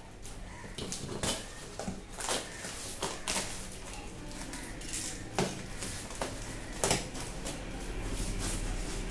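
Packing tape on a cardboard shipping box being slit open with a hand-held cutter: irregular sharp snaps and scrapes of the blade through tape and cardboard, a few louder cracks among them.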